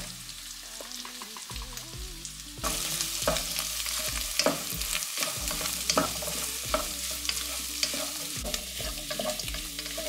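Chopped vegetables and scrambled egg sizzling in oil in a non-stick wok, stirred with a wooden spatula that scrapes and taps against the pan. The sizzle gets louder about two and a half seconds in.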